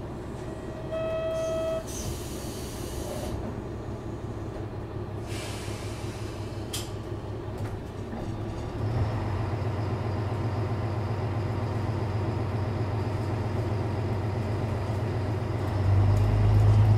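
JR Shikoku 1000 series diesel railcar's engine running with a steady low hum. Near the start there is a brief pitched tone, then a burst of air hiss. The engine note grows louder at about 9 s and again near the end as the throttle opens up.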